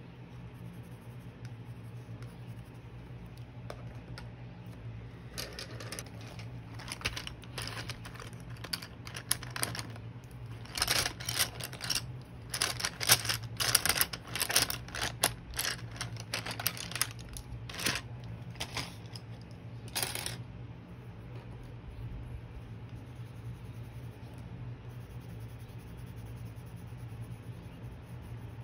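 Coloured pencil scribbling on watercolour paper in quick, scratchy strokes, coming in bursts from about five seconds in and stopping shortly after twenty, over a steady low hum.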